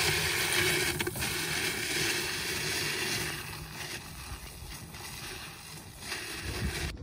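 Plastic wheels of a wheeled cooler box rattling and crunching over a gravel road, together with footsteps on the gravel. The sound grows fainter as the cooler is pulled away.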